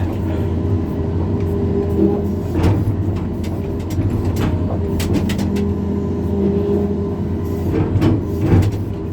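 Backhoe excavator's diesel engine running steadily while digging, with a few short knocks along the way.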